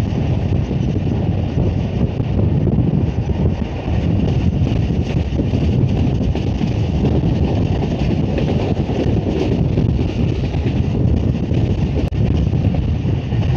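Passenger train running at speed, heard from inside the coach: a steady low rumble of the wheels on the track with wind rushing over the microphone.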